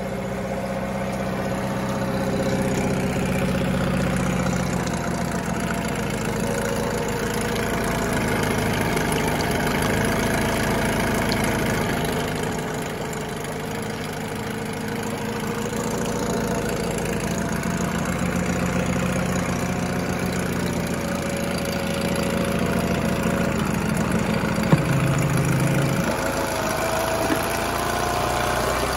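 Volvo Penta 7.5 hp four-stroke outboard, a Honda B75 twin, idling steadily in a test tank, its speed drifting slightly up and down. A single sharp click near the end.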